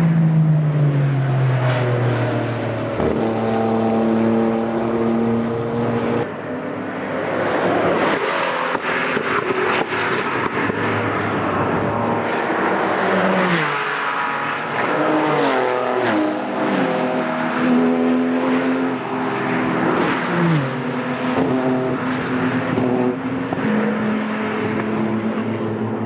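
Porsche track cars at full throttle going by, the engine note climbing and dropping back in steps as they shift up through the gears, several shifts in quick succession past the middle. At the start a car's note falls away as it passes.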